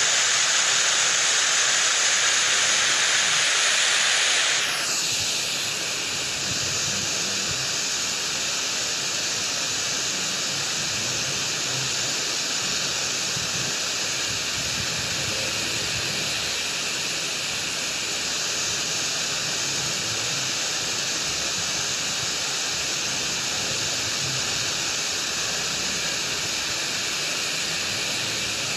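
Floodwater rushing in a steady, even roar through a flood-damaged dam and its spillway gates. About five seconds in the sound drops a little and turns duller, then holds steady.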